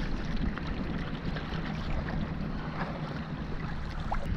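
Wind rushing over the microphone, with waves washing around the boat.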